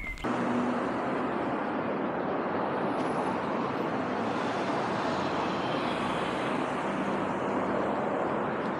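Steady road traffic noise of cars passing on a city street, starting abruptly just after the beginning and holding an even level.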